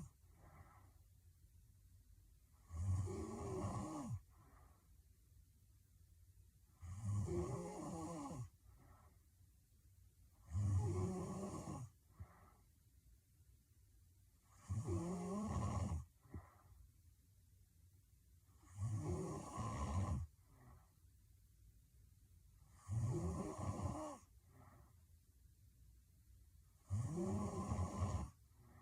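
A girl snoring heavily in her sleep: a loud, rough snore about every four seconds, each lasting a little over a second and followed by a short, fainter sound.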